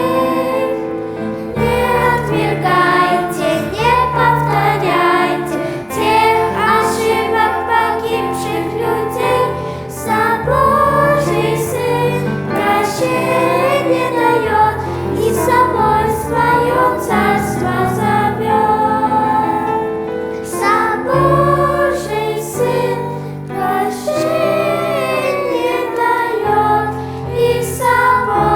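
Children's choir singing a Russian song over an instrumental accompaniment with a steady bass line.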